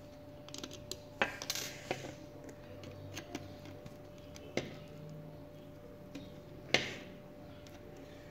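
Scattered light clicks and taps of a small screwdriver and hard plastic parts as a toy Mini Cooper's underside is worked on, with the sharpest clicks about a second in and near seven seconds, over a faint steady hum.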